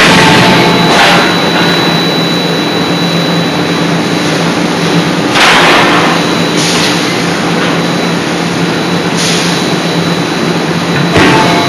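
C92K-80 CNC hydraulic die forging hammer at work: a steady hum and high whine from its hydraulic drive, broken every few seconds by loud strokes, some of them in pairs about a second apart.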